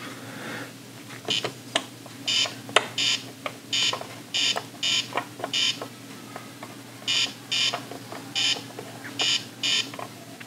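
Ohio Art Etch A Sketch Animator giving short, high buzzy electronic beeps in uneven runs of two to four as its knobs move the drawing cursor, with sharp clicks in between.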